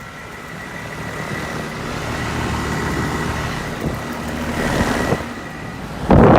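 Rheem central air conditioner condensing units with Copeland scroll compressors running, a steady hum of compressor and fan with a thin high tone, growing louder. About six seconds in, a sudden loud rush of air buffets the microphone.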